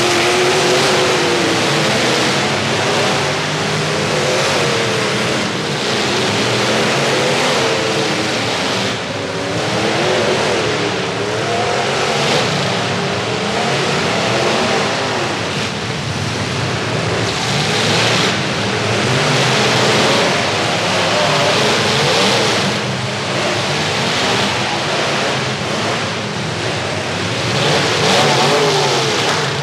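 Several full-size demolition derby pickup trucks' engines running and revving together, their pitch rising and falling, in a loud, continuous din.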